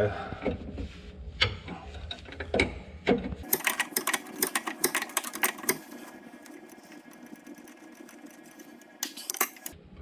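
Hand tools clicking and clinking against the metal fittings of a skid steer's hydraulic valve, with a dense run of rapid sharp clicks starting about three and a half seconds in, thinning out after about six seconds, and a few more near the end.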